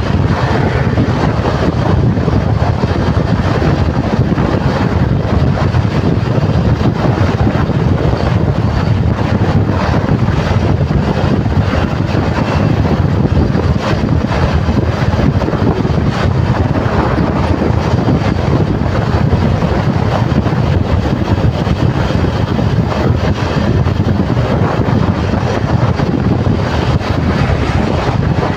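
Loud, steady wind noise on the microphone mixed with the rumble of a motorcycle and highway traffic while riding along a highway.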